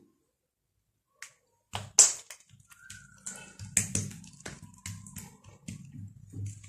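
Hands pressing and flattening a ghee-slicked ball of dough on a marble counter: a run of short wet slaps and clicks, starting about two seconds in.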